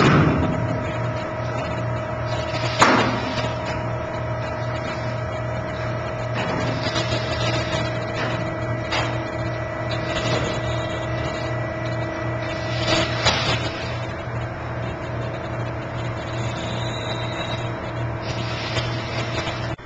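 ROPS test rig running with a steady hum while the steel cab is loaded, broken by sharp bangs from the loaded structure: one at the start, one about three seconds in and a double bang about thirteen seconds in.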